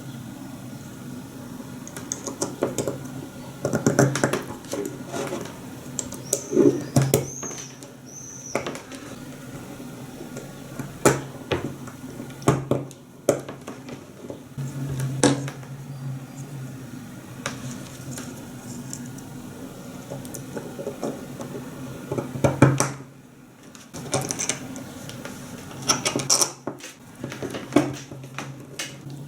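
Scattered clicks, clinks and knocks of small hard parts being handled, over a steady low hum.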